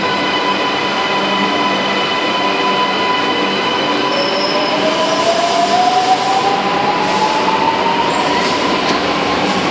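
Shenzhen Metro Line 4 CSR Nanjing Puzhen metro train pulling in and slowing to a stop at the platform. Its electric drive gives a steady high whine, with a second tone rising in pitch from about four seconds in, and a few short hisses near the end.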